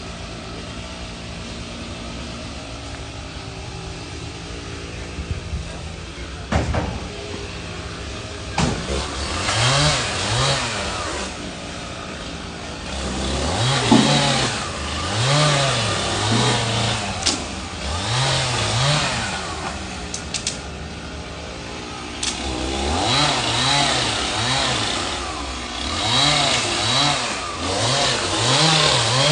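Chainsaw engine idling steadily, then revved up and down over and over with a harsh high whine as it cuts through the fallen tree's wood, with a single sharp knock early on.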